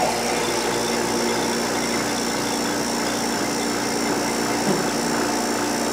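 Electric vacuum pump running steadily with a hum and a high whine as it draws the air out of a glass bell jar, lowering the pressure so the balloon inside swells.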